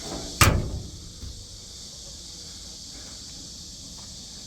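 A single sharp knock about half a second in, over a steady high-pitched hiss that runs throughout.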